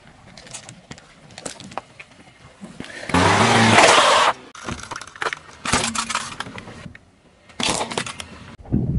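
A car tyre rolling over and crushing small objects: gel water beads squashing and popping, then a plastic toy airplane cracking under the tyre. Scattered cracks and snaps, with a loud, noisy stretch of about a second a third of the way in and another short loud burst near the end.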